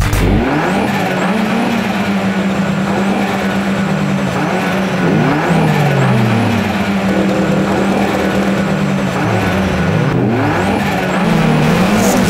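Several tuned turbocharged drag cars idling and revving on the start line, the engine notes rising and falling again and again over a steady idle.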